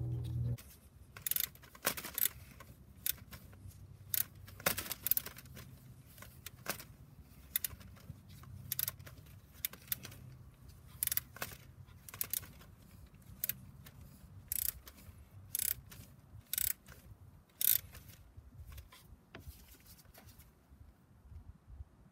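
Ratchet wrench clicking in short strokes, with metal tool clinks, as the nut on the alternator's positive cable terminal is run down and tightened.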